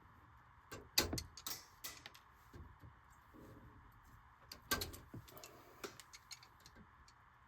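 Scattered, irregular clicks and knocks of hand work on the furnace's metal parts and tools, the loudest about a second in and again past the middle, over a steady faint hiss.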